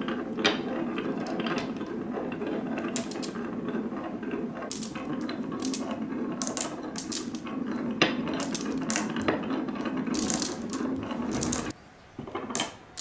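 Marbles rolling down a marble run's wave-slope track: a steady rolling rumble with frequent clicks and clacks. The rumble stops suddenly near the end, followed by a few separate clacks.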